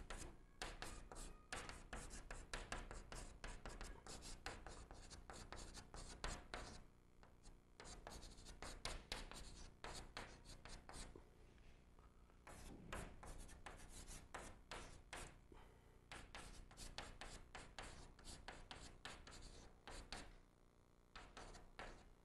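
Chalk writing on a blackboard: quick, faint taps and scratches of the chalk stroke by stroke, in runs broken by a few short pauses.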